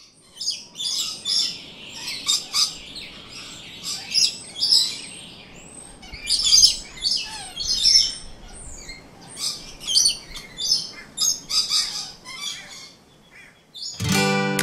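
A flock of rainbow lorikeets feeding, with many short, harsh, high-pitched screeches and chatters overlapping in quick runs. A music jingle comes in near the end.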